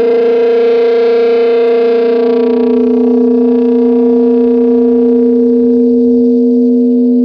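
Distorted SG-style electric guitar holding one long, steady droning note through effects, with no new notes picked.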